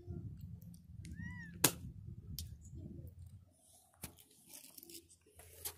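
Low rumbling noise on a hand-held phone's microphone for the first three and a half seconds. About a second in there is a short call that rises and falls in pitch, then a sharp click, and another click about four seconds in.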